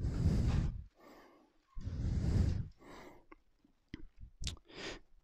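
Two heavy breaths close to the microphone, about a second apart, then a few faint short clicks.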